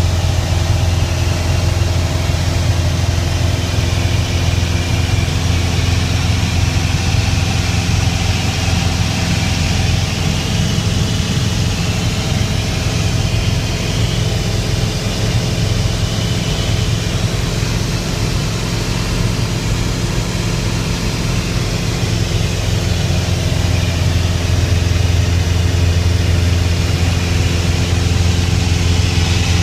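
Cabin drone of a 1978 Piper Archer's four-cylinder Lycoming engine and propeller in flight, heard inside the cockpit: a steady, unbroken hum with a constant pitch.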